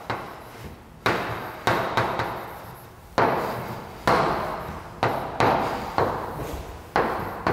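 Chalk knocking and stroking on a blackboard as equations are written: about a dozen sharp taps, roughly one or two a second, each trailing off in the classroom's echo.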